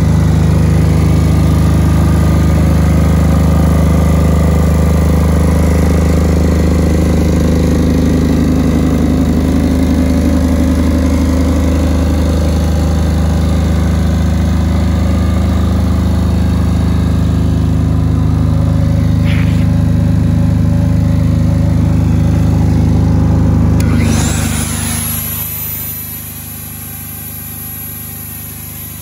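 2015 Mosa GE6000SX/GS 6 kVA portable diesel generator running steadily. Near the end its low drone drops away and a high whine rises and holds.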